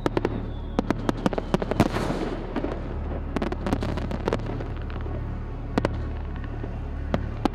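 Fireworks bursting and crackling: a quick run of sharp bangs and cracks in the first two and a half seconds, then scattered single reports.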